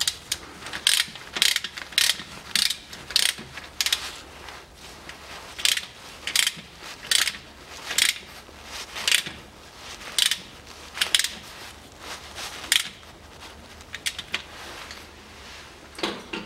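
Ratchet wrench clicking in short strokes, about one or two a second with a couple of pauses, as it turns the filler plug of the Land Rover Defender's transfer case.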